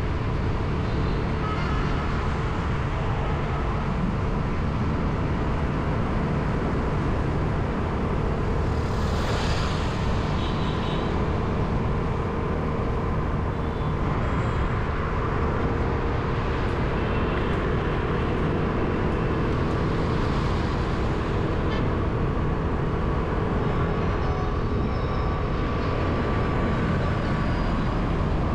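Steady road traffic noise: a continuous wash of passing vehicles, heaviest in a low rumble, with no single event standing out.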